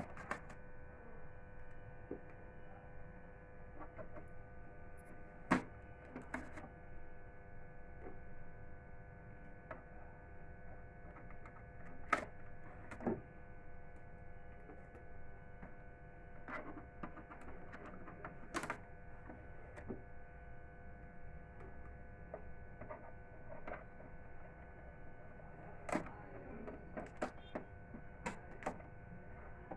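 A faint steady electrical hum, broken by scattered sharp clicks and taps as hands handle the plastic body of a new Epson printer, removing blue packing tape.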